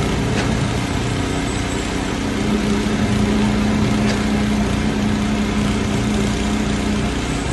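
Engine of the concrete-pouring machinery running steadily at a construction site, a constant droning hum with a couple of faint knocks.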